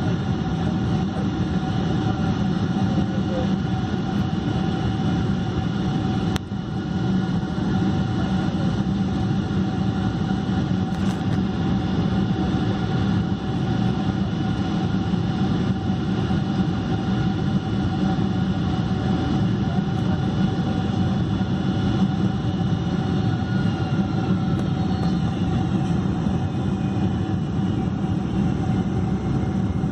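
Steady cabin rumble inside a Boeing 747-400 rolling on the ground after landing, with the even hum and whine of its four Pratt & Whitney PW4000 engines at low power. There is a single short click about six seconds in.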